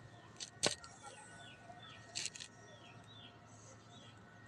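Birds calling faintly in a series of short falling chirps, about two a second. A single sharp tap comes just under a second in, and a brief scuff about two seconds in.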